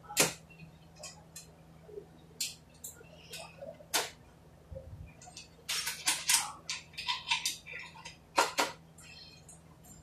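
Sharp metallic clicks and clinks of tools and parts being worked inside an automatic transmission case: scattered single taps, then a quick run of them between about six and eight and a half seconds in.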